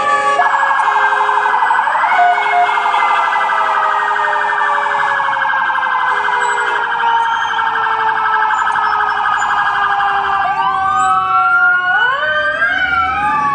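Sirens of an NYPD patrol car and an FDNY fire engine on an emergency response. A fast electronic yelp runs over a slowly falling steady tone, and about ten seconds in the sirens switch to rising wail sweeps.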